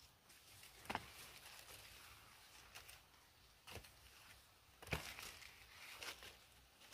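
Faint rustling of leaf litter and a woven sack as fallen star fruit are picked up by hand and dropped into the sack, with a few sharp clicks, the loudest about a second in and about five seconds in.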